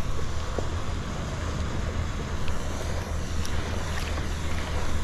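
Wind buffeting the microphone as a steady low rumble, over a constant wash of outdoor noise with a few faint ticks.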